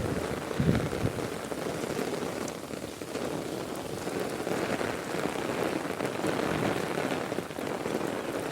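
Heavy rain pouring steadily, a dense even hiss of rain falling on the ground and surfaces.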